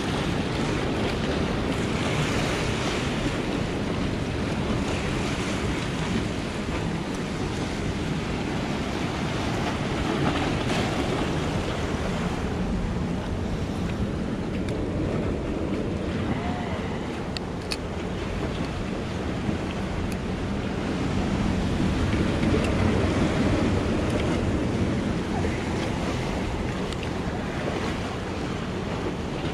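Waves washing against the boulders of a breakwall, with wind buffeting the microphone.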